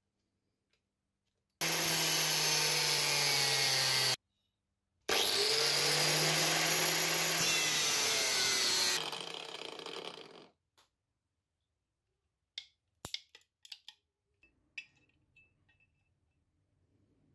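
Angle grinder with a thin cut-off disc cutting through a steel bar, its motor pitch shifting under load, in two loud stretches; the second winds down after about nine seconds. A few short clicks and knocks follow near the end.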